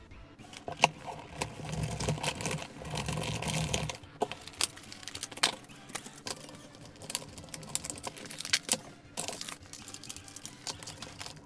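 Clear plastic blister pack of an action figure being handled and opened by hand: a denser rustling of stiff plastic for the first four seconds or so, then scattered sharp clicks and crackles as the figure is worked out of its plastic tray.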